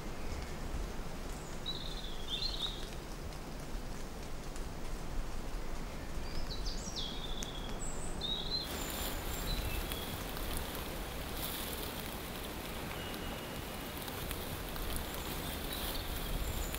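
Outdoor countryside ambience: a steady low rumble under a few short, chirping bird calls in the first half.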